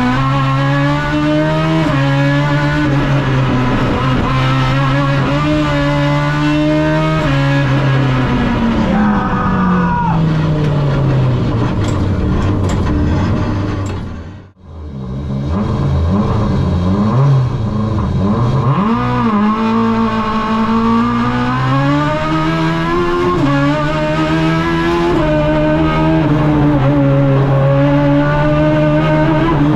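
Peugeot 106 GTi's 1.6-litre 16-valve four-cylinder race engine, heard from inside the cabin, revving hard with quick upshifts. About halfway through the revs fall away, the sound fades out and back in, and the engine then climbs through the gears again.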